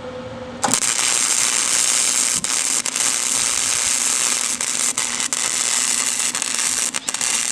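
Electric arc welding: a steady, sputtering crackle that starts suddenly about a second in as the arc strikes and holds with brief breaks. The weld is fixing a bolt onto a homemade steel exhaust tip.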